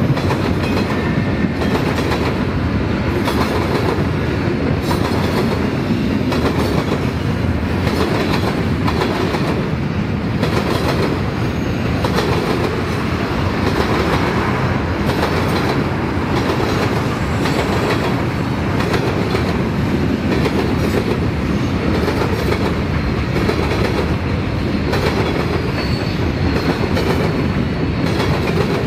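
Freight train cars rolling past: a steady rumble of steel wheels on rail with irregular clicking as the wheels cross rail joints.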